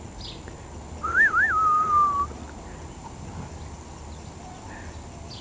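A person whistling a short phrase about a second in: two quick rising-and-falling flicks, then a longer note that slides slowly down, lasting about a second in all.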